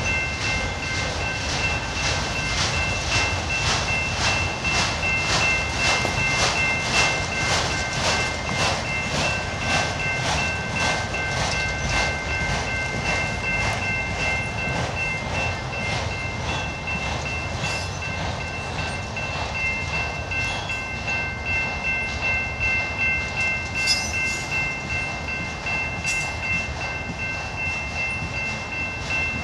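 Long freight train of enclosed autorack cars rolling past, its wheels clacking rhythmically over rail joints at about three clicks a second for the first dozen seconds, then more evenly. A steady high ringing tone sounds throughout.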